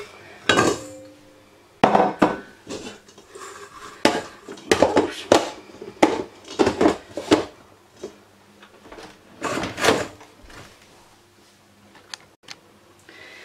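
Biscuits clattering into a stainless steel mixing bowl, then the bowl and its plastic splash guard being knocked into place on a stand mixer: a string of irregular clinks and clunks, some with a brief metallic ring.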